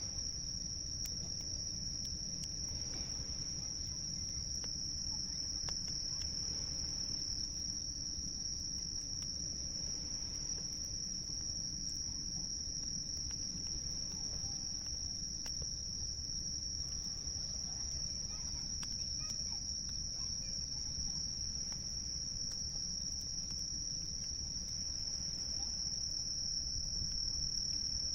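Insects trilling in one steady, unbroken high-pitched chorus over a continuous low rumble of waves, with a few faint crackles of a campfire.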